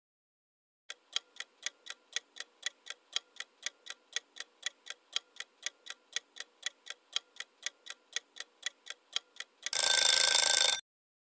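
Countdown-timer sound effect: a clock ticking steadily at about four ticks a second, alternating louder and softer, for about eight seconds. Then a loud alarm-bell ring lasts about a second and cuts off suddenly, signalling that the answer time is up.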